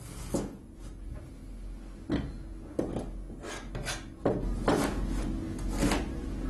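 Chinese cleaver slicing peeled ginger on a cutting board: several irregular knocks as the blade goes through the root and strikes the board.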